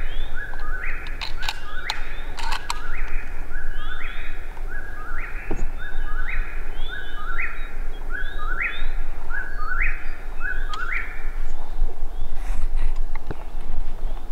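A bird repeating a short call of two rising steps, about once a second for some eleven seconds, over a steady low rumble.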